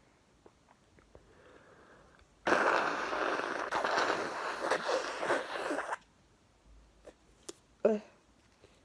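A congested sneeze set off by chhinkni sneezing powder: a sudden loud, wet burst of noise about two and a half seconds in that lasts about three and a half seconds, followed by a few faint clicks.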